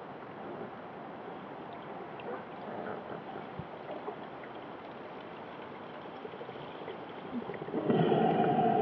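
Muffled underwater noise picked up through a waterproof camera housing on a night spearfishing dive: a steady hiss with scattered small clicks, then a louder burst of sound about eight seconds in.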